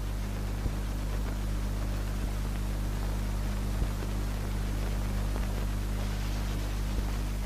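Steady low hum with an even hiss and a few faint clicks: the background noise of an old film soundtrack between lines of narration.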